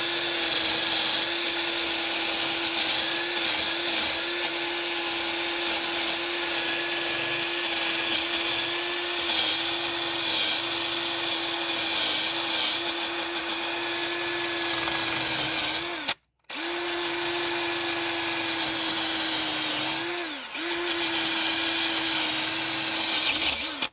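Electric drill on its fast setting spinning a wire wheel brush against a rusty wheel hub, cleaning it to take a new wheel bearing: a steady high whine over scratchy hiss. It stops for a moment about 16 seconds in and restarts, the pitch sags briefly around 20 seconds as it is pressed harder, and it stops near the end.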